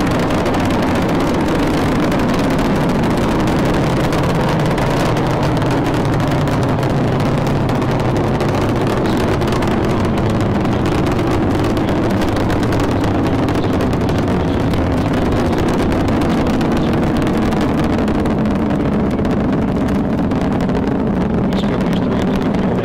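Space Shuttle ascending: the loud, steady rumble of its solid rocket boosters and main engines firing.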